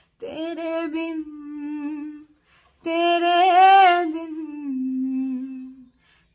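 A woman singing unaccompanied in two long held phrases without clear words. The second phrase wavers on its high note and then slides down to a lower note before breaking off.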